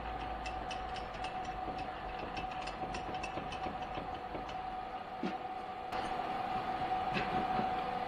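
Metal lathe running with a steady whine. Over it comes a rapid run of light ticks, about four a second, for the first five seconds, then a few single clicks.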